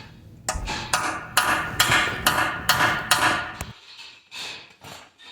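Hammer striking a broken head bolt in a Ford flathead V8 engine block to knock its remnant out. There are about seven sharp metallic blows at roughly two a second, then a few lighter taps near the end.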